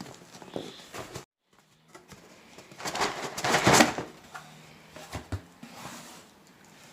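A mailed package being handled and opened: scattered knocks and clicks, with a long rustling burst about three seconds in.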